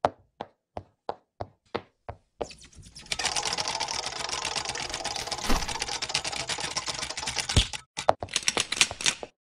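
Animated outro sound effects: a run of sharp separate clicks, about three a second, then a dense rapid clattering like typing, ending in a few more clicks.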